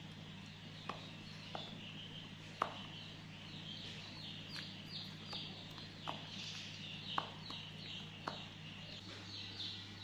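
Birds chirping over and over in short, high, falling notes, with a few sharp clicks and a steady low hum underneath.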